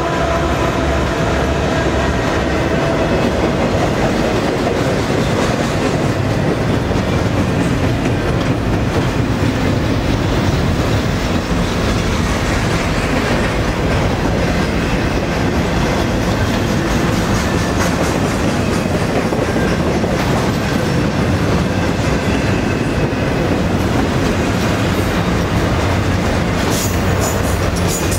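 Loaded double-stack intermodal well cars rolling past at speed: a steady, loud rumble of steel wheels on rail with rapid clicking. The trailing Union Pacific diesel locomotive's engine tones fade out in the first second or two, and a few sharp clanks come near the end.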